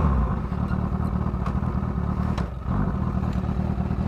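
Honda CBR1000RR's inline-four engine running at low, steady revs as the bike slows to a stop, easing off briefly about two and a half seconds in.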